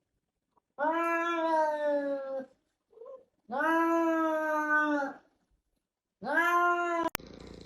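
A cat giving three long, drawn-out meows, each held at a steady pitch that sags slightly toward its end. The third is the shortest and is cut off by a click near the end.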